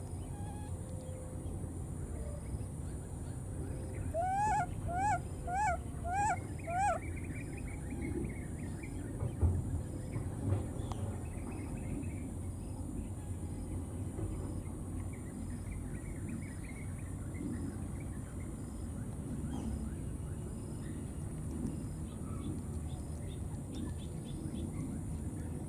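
Five short calls from an animal about four seconds in, each rising then falling in pitch, about two a second, followed by fainter high squeaks and two dull thumps.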